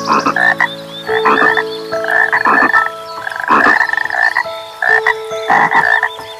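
Repeated animal calls, roughly one a second, with a high, fast-pulsing trill above them.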